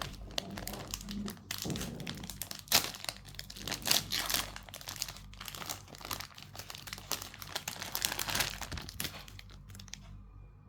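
Crinkly packaging wrapper crumpling and crackling as it is handled while unboxing, in irregular bursts with two louder crackles about three and four seconds in, dying down near the end.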